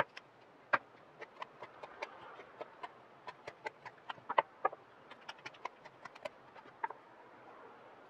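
Carving knife taking small paring cuts on the handle of a dry olivewood spoon: a quick, irregular run of crisp clicks, three or four a second, that stops about seven seconds in.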